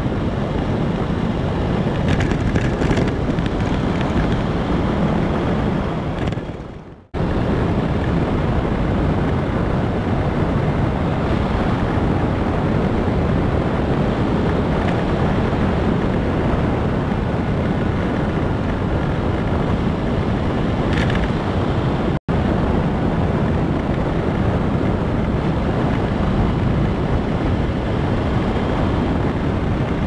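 Wind rushing over a motorcycle-mounted camera's microphone, with the road and engine noise of the motorcycle riding along at a steady speed. The sound fades away briefly about seven seconds in and cuts out for an instant a little past twenty seconds.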